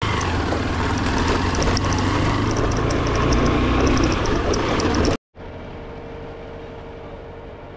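A vehicle running with a heavy low rumble that cuts off abruptly about five seconds in, followed by a much quieter steady hum.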